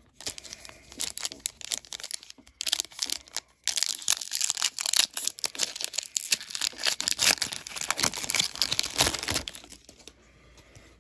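A retail trading-card pack's foil wrapper being torn open and crinkled: a dense run of rips and crinkles with a brief pause about three and a half seconds in, dying away near the end.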